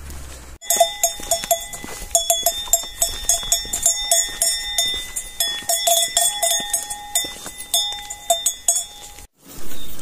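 Several livestock neck bells clanking irregularly, ringing strokes overlapping one another. The sound starts abruptly about half a second in and cuts off shortly before the end.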